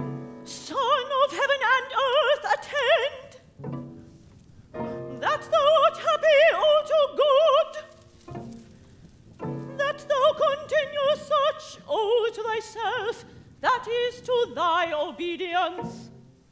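A woman singing operatic phrases with wide vibrato in a high register, in three phrases with short breaks about four and nine seconds in, over low sustained string notes.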